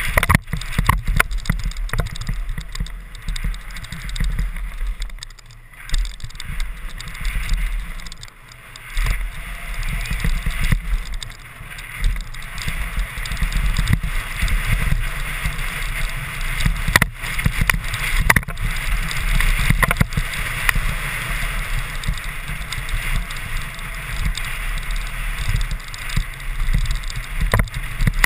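Mountain bike ridden fast down a dirt trail: heavy wind rumble on the microphone over the hiss of tyres on loose dirt and a constant rattle of the bike. A few sharp knocks, two close together past the middle and one near the end.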